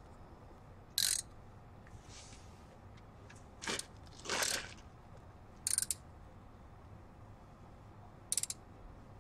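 Hand ratchet wrench clicking in five short bursts of strokes, the one a little before the middle lasting longest.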